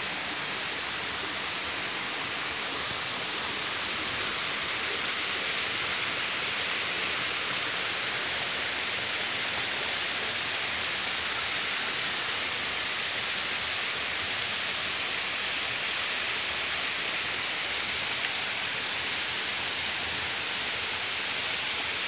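Waterfall and the shallow stream below it running steadily, a constant hiss of falling and flowing water that grows a little louder a few seconds in.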